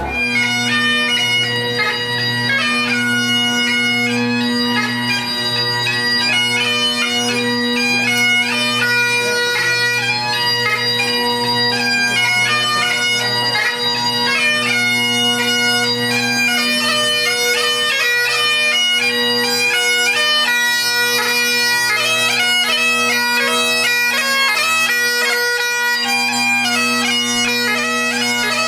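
Bagpipes playing a melody over steady, unchanging drones, starting abruptly.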